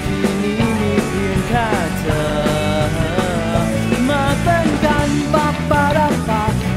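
Rock band playing a song live: electric guitar, bass and drums, with a melodic lead line bending over them.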